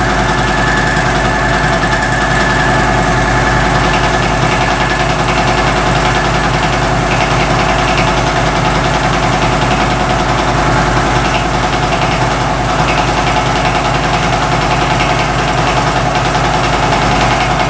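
Vertical knee milling machine running, a large milling cutter taking a light cut of about ten thousandths off a bar of 3/4-inch key stock. It makes a steady mechanical hum, with a high steady tone in the first few seconds that fades out.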